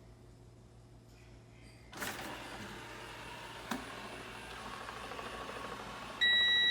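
Coredy R500+ robot vacuum starting up: its motor and brushes begin a steady whirr about two seconds in, with a single click a little later. Near the end it gives a loud, short electronic beep.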